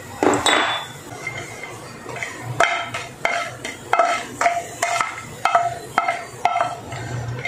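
Wooden spoon stirring small pieces of asafoetida in a little sesame oil in a stone-coated nonstick frying pan. From a couple of seconds in it knocks against the pan about twice a second, each knock leaving a short ringing tone.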